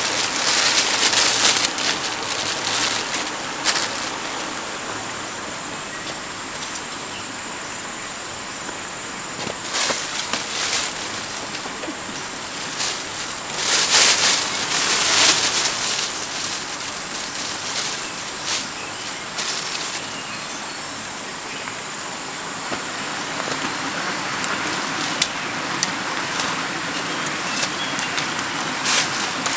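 Thin plastic bag crinkling and rustling in bursts as it is handled and shaken open, loudest about halfway through, over a steady background hiss.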